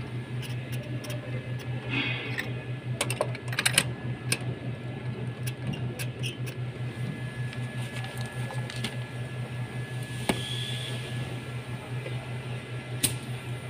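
Light metallic clicks and taps from a spark plug socket on a long extension being handled in the plug wells of a Mitsubishi Montero engine, mostly in the first few seconds with a couple more near the end. A steady low pulsing hum runs underneath.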